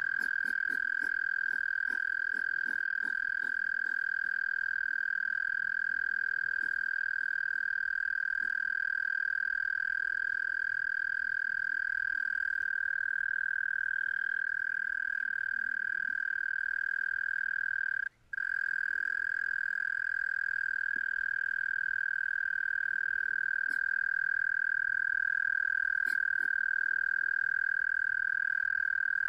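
A continuous high-pitched steady call, one unbroken tone with fainter overtones, taken for a hedgehog's sound. It stops for a moment about 18 seconds in.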